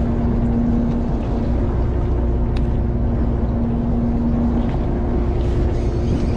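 Fishing boat's engine running steadily: a low rumble with a steady hum, and one brief click about two and a half seconds in.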